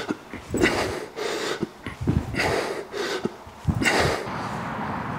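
A person breathing hard, several forceful exhalations a second or more apart, from the exertion of high-intensity gym intervals, with short low thuds among them. About four seconds in the breathing stops and a steady low background noise remains.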